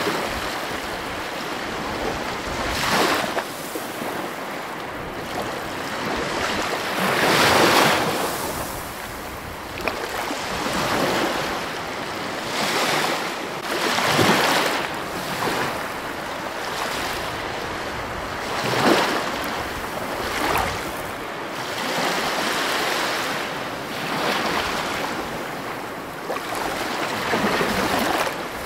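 Ocean surf breaking and washing over rocks: a steady rush of water that swells into a louder surge every few seconds as each wave comes in.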